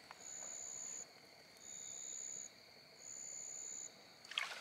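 A cricket chirping in regular high-pitched trills, each just under a second long, repeating about every second and a half, over a fainter steady insect hum. A short burst of noise comes near the end.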